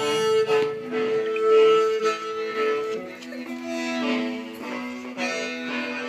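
Hmong khen, a bamboo mouth organ with brass free reeds, playing long held notes with two or three tones sounding together; about halfway through, the higher note gives way to a lower one.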